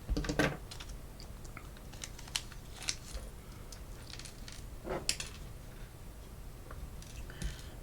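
Scattered small clicks and ticks of tiny plastic and metal model-locomotive parts being handled and opened at a work bench, with a few sharper clicks about two to three seconds in and again around five seconds in.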